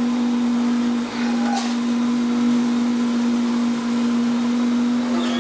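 Lathe spinning a metal pot, running with a loud, steady hum while a worker presses a cloth pad against the turning metal to polish it, a rough rubbing hiss under the hum.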